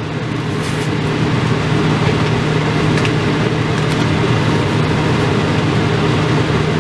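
Taco meat, ground beef with seasoning and a little added water, sizzling in a nonstick skillet over a gas burner: a steady hiss over a low hum.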